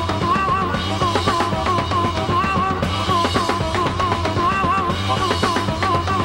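Harmonica played in a wailing rock solo, its notes wavering and trilling around one pitch, over a steady rock drum-kit beat.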